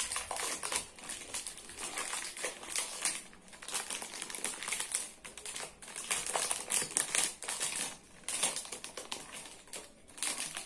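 Clear plastic packaging of ready-made pastel dough crinkling irregularly as it is handled and opened.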